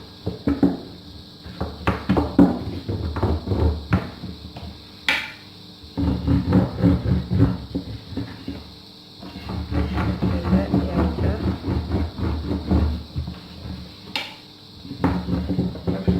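Thin Turkish rolling pin (oklava) rolling out layered, oiled dough on a board: low rumbling back-and-forth strokes in several stretches, with scattered knocks and one sharp click about five seconds in.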